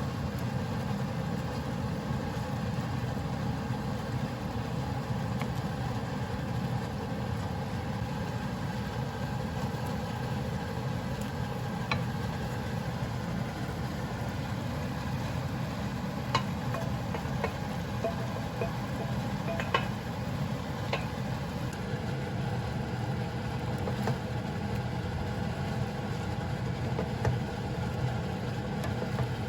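A steady low mechanical hum, like a motor or engine running, with a few light clicks around the middle.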